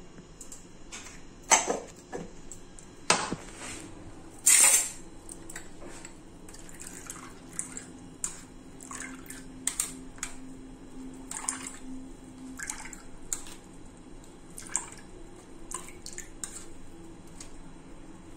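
Kitchen utensils clinking and scraping against a metal strainer as ginger and onion paste is knocked out of a mixer jar and pressed with a spoon to squeeze out its juice. Three sharper knocks come in the first five seconds, followed by a run of lighter taps and scrapes.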